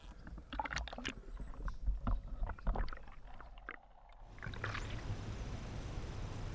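Scattered knocks, flops and splashes as a freshly caught largemouth bass is handled over the deck of a bass boat. A short muffled spell near four seconds in, then a steady rush of wind and water.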